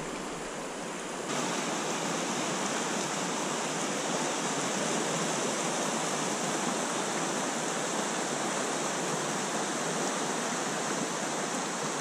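Steady rush of a shallow stream's current running over riffles. It turns a little louder and brighter about a second in, then holds even.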